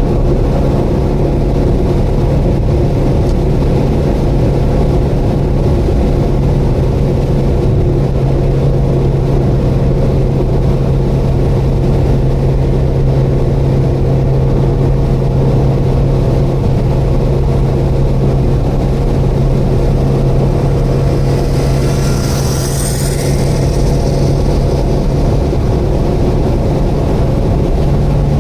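Subaru Vivio's 660 cc four-cylinder engine droning steadily at expressway cruising speed, heard from inside the car, with a steady low hum over tyre and road noise. A brief hiss about three-quarters of the way through.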